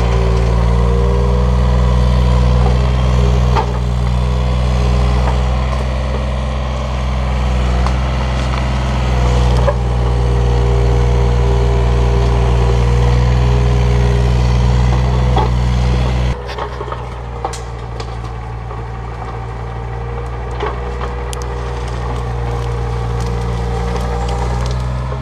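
Takeuchi TB235 mini excavator's diesel engine running steadily under working load with a steady whine over the engine note, as the machine tracks and digs through brush, with scattered cracks of breaking wood and brush. The sound drops in level about sixteen seconds in.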